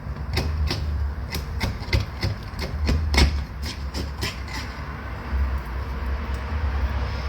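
A run of about a dozen sharp clicks and knocks, roughly three a second, dying out a little past halfway, from a tool working honeycomb loose from a wild hive. A steady low rumble sits underneath throughout.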